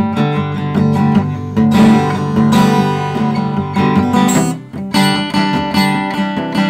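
Acoustic guitar strumming with harmonica notes held over it. The playing drops away briefly about two-thirds of the way in, then picks up again.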